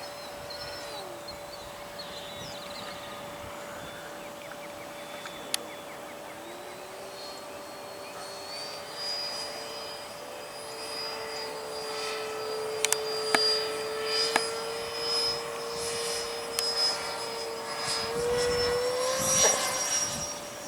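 Electric ducted-fan whine of an E-flite 64mm Viper RC jet in flight. Its pitch drops about a second in, climbs through the middle and rises again near the end, over a steady hum, with a few sharp clicks.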